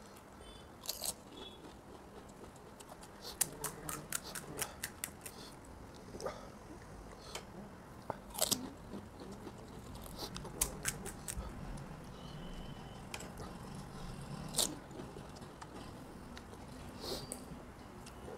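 Crisp pani puri shells being cracked open and crunched: scattered short, sharp crackles and clicks that come in several clusters, with faint chewing between them.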